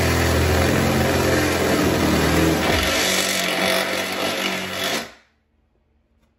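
Cordless impact driver spinning a step bit, drilling a half-inch hole through a car's trunk lid. The motor runs steadily, drops a little in pitch about three seconds in, and stops about five seconds in.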